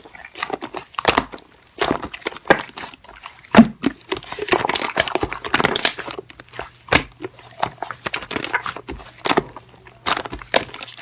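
Slime being handled by hand: an irregular run of sharp crackling clicks and pops, thickest about four to six seconds in.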